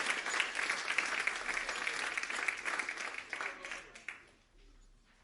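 Audience applauding: dense clapping that thins out and dies away about four seconds in.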